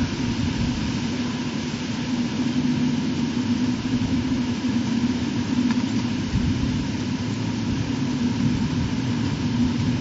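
Steady low rumble with a constant low hum running through it, picked up by an outdoor nest-camera microphone.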